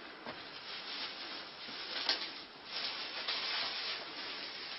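Irregular scratching and rubbing against a cardboard box, swelling and easing in uneven stretches, with a sharper scrape about two seconds in.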